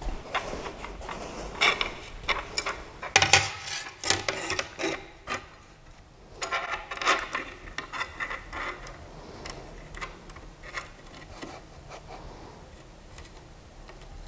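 A thin wooden sheet being handled and set onto a 3D printer's bed by hand: an irregular string of knocks, taps and rubbing scrapes, busiest in the first half and thinning out after about ten seconds.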